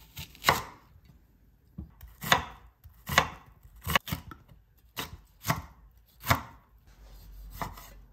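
Kitchen knife slicing vegetables (red onion, mini sweet peppers, cherry tomatoes) on a wooden cutting board: about nine sharp knocks of the blade meeting the board, irregularly spaced, a second or less apart.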